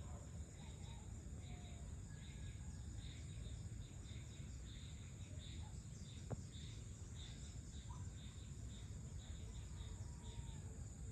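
Evening insect chorus: a steady high drone with repeating chirps over a low background rumble, with a few faint bird calls and a single sharp click about six seconds in.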